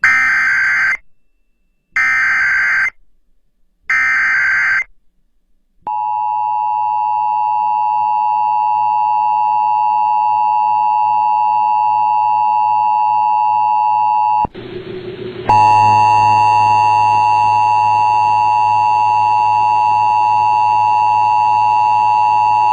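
Emergency Alert System alert on NOAA Weather Radio: three one-second bursts of screeching digital header data, a second apart, then the long steady attention tone. About two-thirds of the way through, the tone gives way to about a second of static before it resumes.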